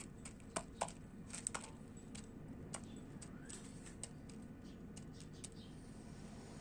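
Small wild birds pecking and cracking seeds at a feeder: irregular sharp taps and clicks, a quick cluster of them in the first second and a half, then sparser ones.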